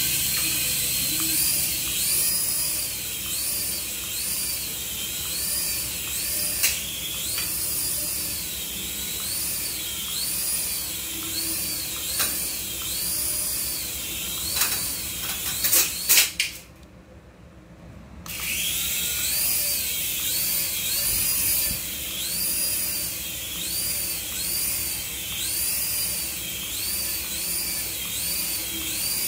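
Small coaxial RC toy helicopter's electric rotor motors whining in flight, the high pitch rising and falling in quick repeated waves as the throttle shifts. A few sharp clicks come about halfway through, then the whine cuts out for about two seconds and starts up again.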